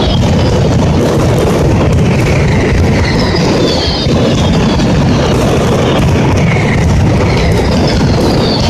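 Mascletà firecracker barrage: a dense, unbroken rattle of bangs and crackles over a low rumble, with whistles that fall in pitch coming back every few seconds.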